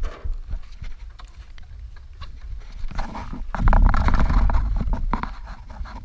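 Zipline trolley, shackles and carabiners knocking and clinking against the steel cable, with a sharp clank at the start and scattered clicks after it. From about three and a half seconds in, a loud low rushing rumble takes over.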